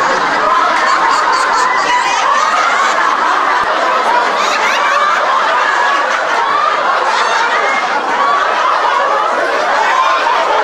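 A large group laughing together in a laughter yoga exercise, many voices overlapping in continuous laughter.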